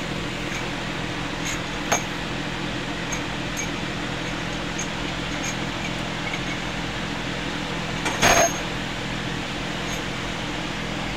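Steady mechanical hum with a low drone, broken by a single sharp tap about two seconds in and a brief louder noise about eight seconds in.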